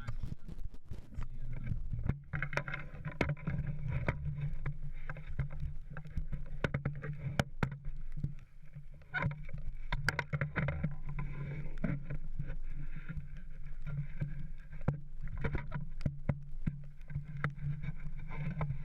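Small wooden sailboat under way: water washing and lapping along the hull, with a steady low hum underneath and scattered sharp ticks throughout.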